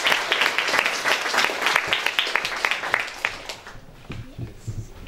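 Audience applauding, the clapping thinning out and dying away about three and a half seconds in, leaving a few scattered claps.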